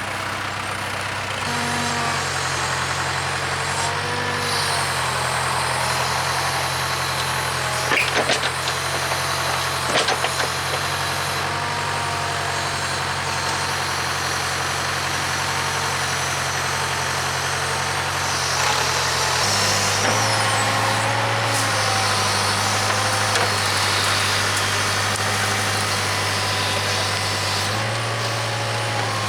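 Case 580K backhoe's diesel engine running under load while digging, with the hydraulics whining as the boom and bucket move and the engine speed shifting a few times. A couple of sharp knocks about eight and ten seconds in, from the bucket working the dirt.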